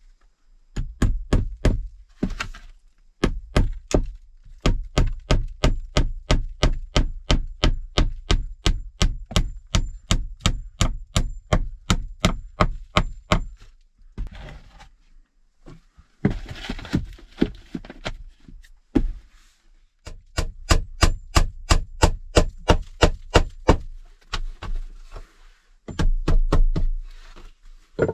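Hammer driving nails into wooden boards: long runs of quick, even strikes, about three or four a second, with short pauses between runs. About halfway through there is a rustle of material being handled.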